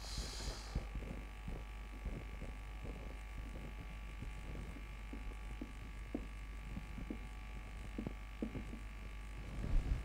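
Faint scattered scratches and taps of a marker writing on a whiteboard, over a steady low electrical hum.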